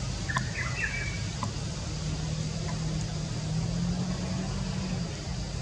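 Low, steady engine hum, like a motor vehicle running nearby, with a few short high chirps in the first second and a half.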